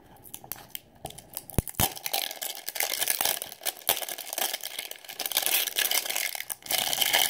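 Clear plastic shrink wrap being peeled and torn off a toy capsule package, crinkling continuously from about two seconds in, after a couple of light knocks.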